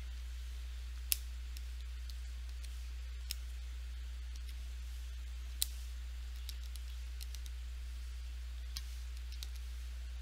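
Keys of a Texas Instruments TI-30XS MultiView calculator clicking at an irregular pace as a long formula is typed in, three presses louder than the rest, over a steady low electrical hum.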